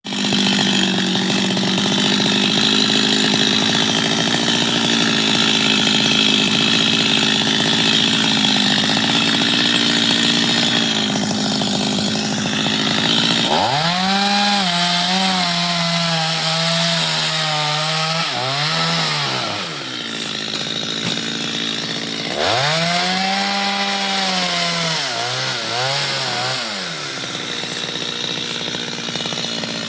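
Two-stroke chainsaw cutting mango wood, the engine held at high speed. About 13 seconds in it falls low and is throttled back up to a high held note, then lets down with a couple of quick blips. The same rise and fall comes again a few seconds later.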